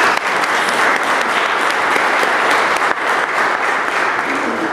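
Audience applauding, a steady dense clapping that begins to die away right at the end.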